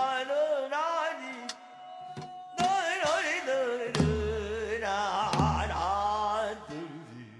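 Korean traditional folk music accompanying deotbaegi dance: a wavering melodic line with heavy vibrato over sharp percussion strikes and two deep drum booms about four and five and a half seconds in.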